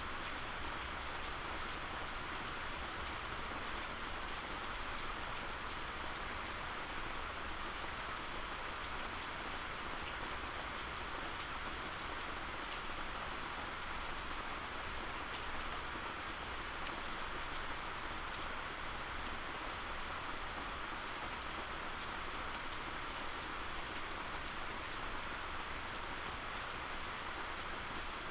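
Steady rain falling, an even patter of drops on surfaces.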